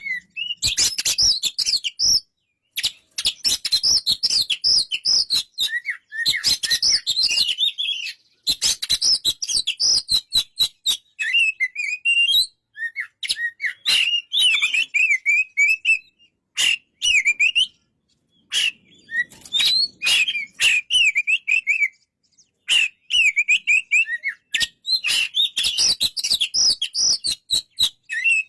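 Oriental magpie-robin (kacer) singing: rapid, varied whistled and chattering phrases in bursts a few seconds long, separated by short silent gaps and mixed with many sharp clicks.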